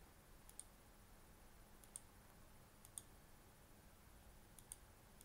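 A few faint computer mouse clicks, some in quick pairs, over near-silent room tone.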